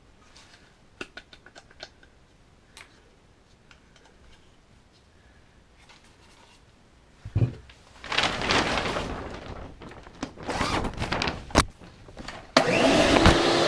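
Light clicks and knocks from handling and adjusting a small router, with a thump and rustling as it is carried to the board. About a second before the end a wet/dry shop vacuum switches on suddenly and runs with a steady, loud motor whine.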